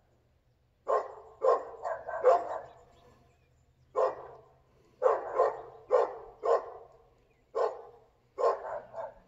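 A dog barking repeatedly, about a dozen barks in irregular bursts of one to three with short pauses between, each bark trailing off in an echo.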